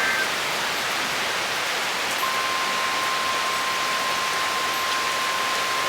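Heavy thunderstorm rain pouring in a steady, even rush. About two seconds in, a steady high beep-like tone starts and holds.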